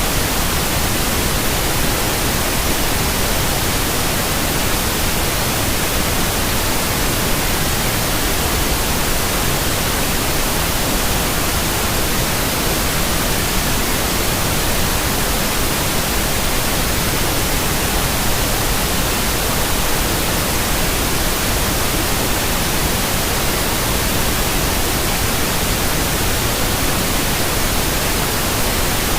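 Steady white noise: an even, unchanging hiss spread across all pitches, played as a sleep aid for a baby.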